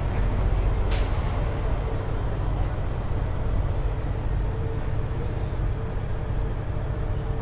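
Steady low engine rumble with a faint thin hum over it, and one brief sharp click about a second in.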